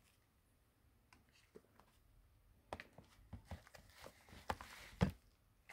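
Faint clicks and taps of a smartphone and small tools being handled on a workbench, with a short rasping hiss about four seconds in and a sharper click just after.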